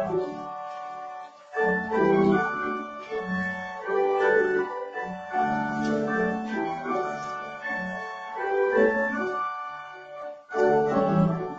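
Church organ playing a hymn in sustained chords, with brief breaks between phrases about a second and a half in and near the end.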